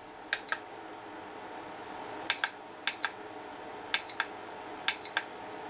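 Turnigy-style LiPo balance charger giving five short, high electronic beeps with button clicks as its Inc button is pressed repeatedly, stepping through its display screens during a charge. A steady fan hum from the charger and its power supply runs underneath.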